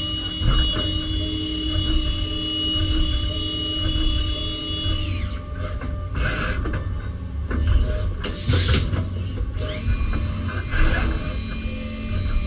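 CNC machining centre during a tool change: a steady high spindle whine winds down about five seconds in, two short hissing bursts follow, and a whine winds back up later on.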